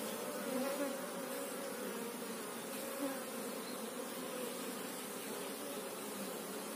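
A mass of Asian honeybees (Apis cerana) buzzing in a steady, slightly wavering hum from a colony opened up for splitting.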